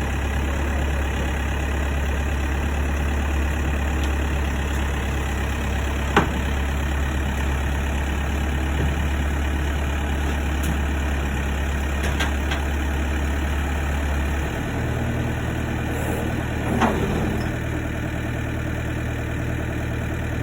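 Heavy diesel engine idling steadily, its low drone dropping into a different, slightly higher note about two-thirds of the way through. A few short knocks sound over it.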